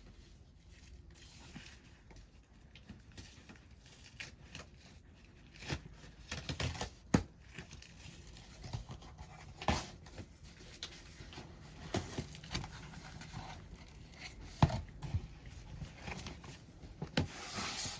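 A parcel being unpacked by hand: tearing and crinkling of packing material, with several sharp knocks as things are handled.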